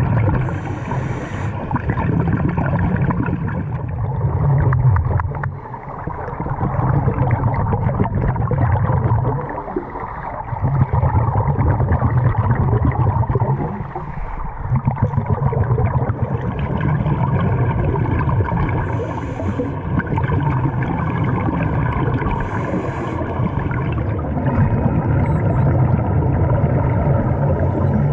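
Underwater sound through a dive camera's waterproof housing: a steady low rumbling rush of water and scuba regulator bubbles, dipping briefly every few seconds.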